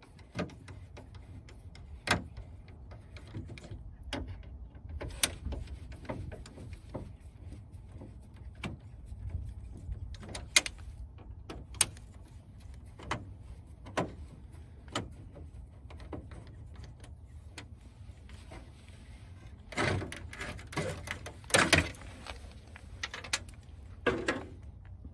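Scattered clicks, knocks and plastic rattles of a rear-projection TV's casing being unscrewed and handled apart, with a busier clatter about twenty seconds in.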